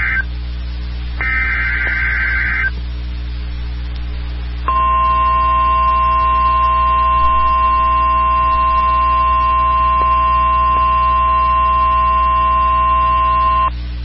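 Emergency Alert System tones from a NOAA weather radio: the end of one SAME header data burst, then a full burst about a second in, each a harsh buzzing warble. After a short gap the steady 1050 Hz weather radio alarm tone sounds for about nine seconds, with a low electrical hum underneath throughout.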